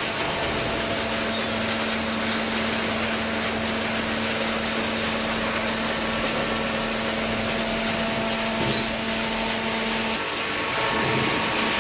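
Horizontal hydraulic cardboard baler running: a steady mechanical noise with a constant hum, which drops out briefly about ten seconds in before the machine gets a little louder.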